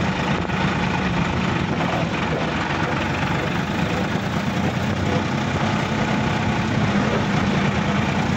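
Sonalika DI-50 RX tractor's direct-injection diesel engine running steadily as the tractor drives along, heard from the driver's seat.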